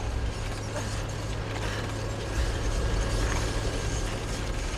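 Steady low rumble with mechanical rattling and faint clicks over it.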